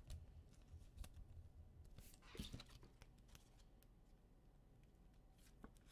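Near silence with faint scattered clicks and a soft rustle of trading cards being handled and sorted.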